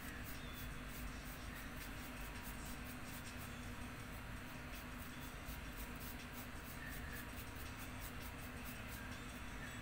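Faint, quick scratchy strokes of a flat paintbrush spreading poster paint across paper, repeated several times a second, over a steady low hum.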